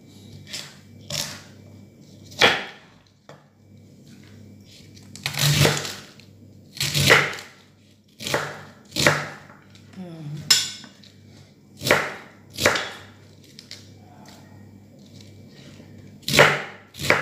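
Kitchen knife chopping a head of cabbage on a wooden cutting board: about a dozen crunching cuts at an uneven pace, each ending in a knock of the blade on the wood.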